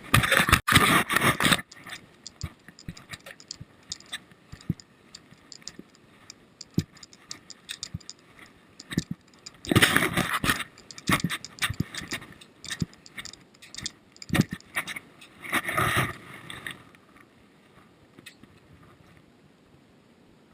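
Handling noise: scattered clicks and scrapes, with three louder scraping rushes, one right at the start, one about ten seconds in and one about sixteen seconds in, before it settles.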